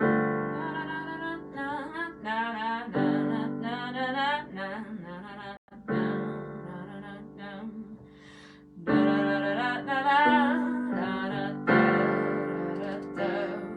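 Electric piano playing sustained chords that change every few seconds, with a wordless sung melody wavering over them. The sound drops out for a moment about halfway through.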